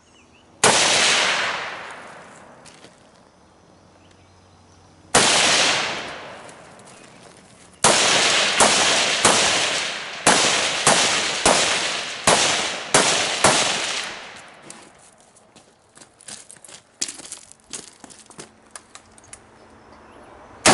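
Gunshots fired in a shooting drill: a single shot, another about five seconds later, then a rapid string of about ten shots over some six seconds, each shot ringing out briefly. Faint clicks follow, and one more shot comes right at the end.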